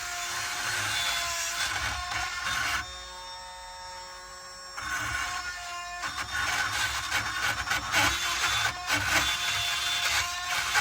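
Power drill running a Magi burr bit into a UAP lock, grinding through the metal with a steady whine. About three seconds in it eases off for two seconds, running lighter and quieter, then bites in again.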